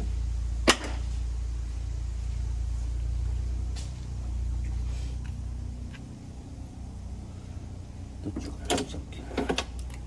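A yellow refrigerant manifold hose and its fittings are being handled at a vacuum pump's port. There is one sharp click just under a second in, then a cluster of short metallic clicks and rattles near the end as the hose is fitted. Under this, a steady low hum runs for the first half and then dies away.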